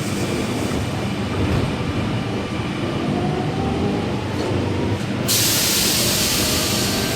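Electric passenger train running through the station, its motor whine rising in pitch. About five seconds in a sudden loud hiss starts and holds.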